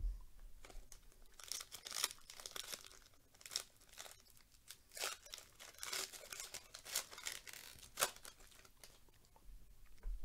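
Trading-card pack wrapper being torn open by hand: a run of crinkling, ripping crackles, the sharpest about eight seconds in.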